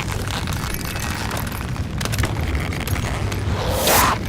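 Sound-effects rumble, a steady deep boom-like drone, with a rising whoosh that swells to a loud rush about four seconds in.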